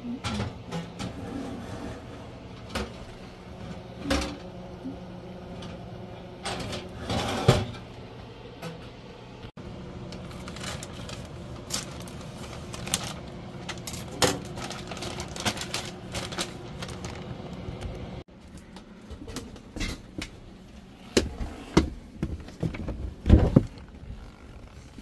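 Clicks and knocks of kitchen handling over a steady low hum: metal tongs working a pizza on a gas oven's rack, then scissors snipping open a plastic bag of fries. Near the end, knocks and rattles as a door is opened.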